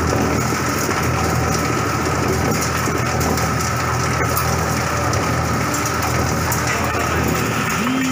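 Coconut shell and husk grinding machine running steadily: a constant machine hum under a continuous rushing hiss of material being milled and discharged as powder.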